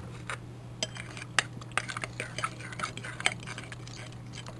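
A spoon stirring a runny mix of barbecue, teriyaki and honey-mayonnaise sauces in a bowl, with irregular clinks and scrapes against the bowl.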